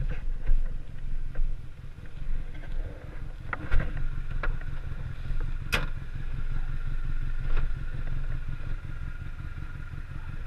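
Vehicle engine running steadily at low revs, with a few sharp knocks or clicks over it.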